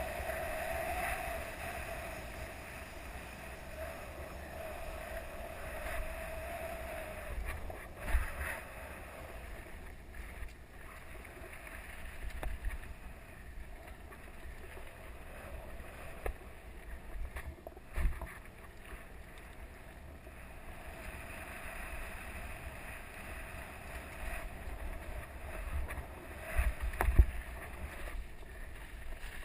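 Mountain bike riding fast down a dirt singletrack, heard from a camera on the bike or rider: wind rushing over the microphone and tyres rumbling on the dirt, with a few sharp knocks as the bike hits bumps, the loudest near the end.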